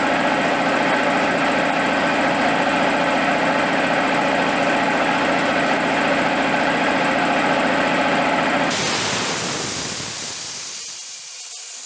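U43102 two-cylinder piston air compressor, driven by a 3 kW 220 V electric motor, running with a steady fast rhythm as it pumps the tank to about 8 bar. Near nine seconds in, the pressure switch cuts it off at full pressure. A hiss of released air follows and fades as the machine spins down.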